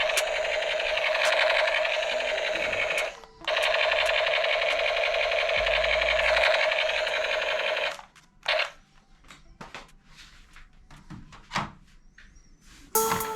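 A small motor buzzing steadily, cutting out briefly after about three seconds and stopping after about eight, followed by a few scattered clicks and knocks.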